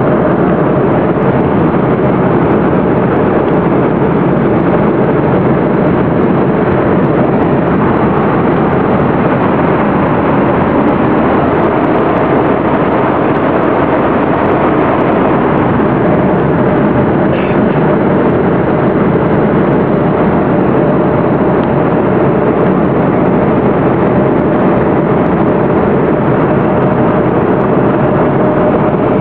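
Airliner cabin noise in cruise flight: the steady rushing drone of the engines and airflow over the fuselage, with a faint steady hum running through it.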